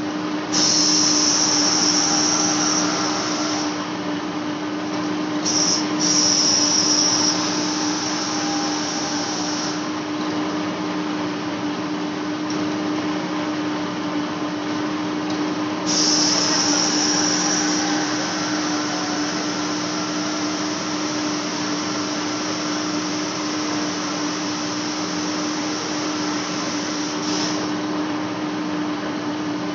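Large lathe facing a metal flange: the machine runs with a steady hum and the noise of the cut, and a brighter, higher hiss from the cutting comes and goes three times.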